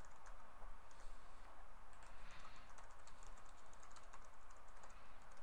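Computer keyboard typing: quick, irregular key clicks over a faint steady hum.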